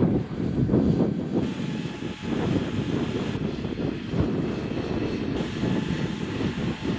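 Electric ducted-fan model jet in flight, heard as a steady, low, rough rushing noise.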